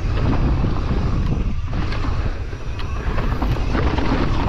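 Mountain bike rolling fast down a dirt trail: wind buffeting the microphone and tyre rumble over the ground, with scattered clicks and rattles from the bike.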